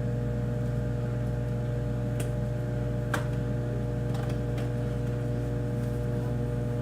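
Microwave oven running with a steady hum, with a few light clicks from handling.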